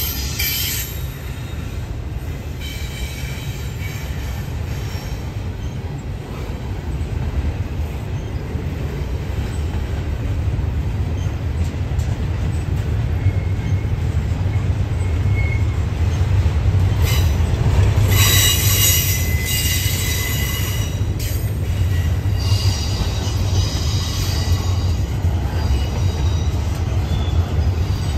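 Double-stack intermodal freight train rolling past with a steady low rumble of cars on the rails. High-pitched wheel squeal comes and goes, loudest about two-thirds of the way through.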